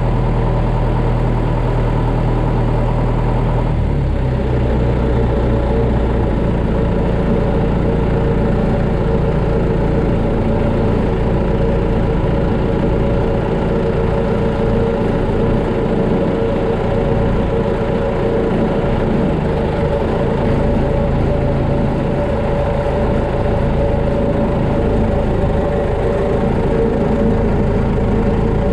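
A John Deere tractor's diesel engine running steadily as its front-end loader works pallet forks to lift a pallet; the engine note shifts about four seconds in, then holds.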